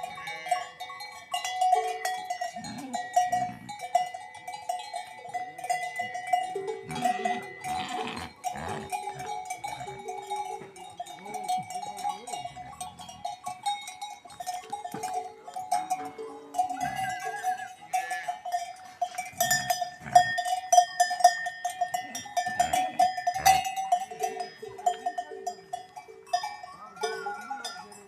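Livestock bells clanking and ringing without a break, as the animals move about. Several bells of different pitch are heard.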